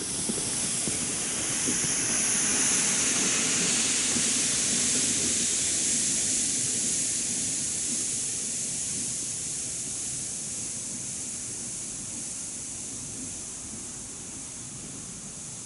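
A sled dragged over snow with a steady hiss, with boots crunching in the snow near the start, getting slowly fainter as it is pulled away.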